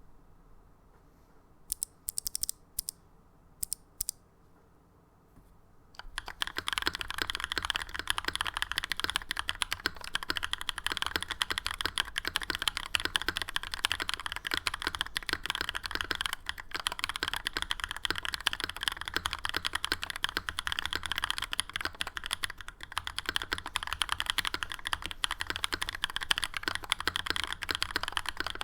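Typing on a Novelkeys NK87 aluminum tenkeyless mechanical keyboard with lubed linear switches, an aluminum plate, plate foam and GMK keycaps. A few separate clicks come in the first seconds, then fast, continuous typing from about six seconds in.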